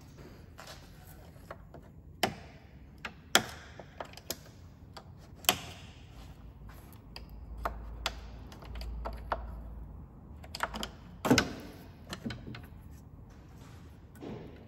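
Scattered sharp plastic clicks and knocks as a thin flat-blade screwdriver and fingers pry back the plastic locator lugs that hold a Peugeot 207's air-con condenser at the top, working each clip free one side at a time. The loudest snaps come about three seconds in and again about eleven seconds in.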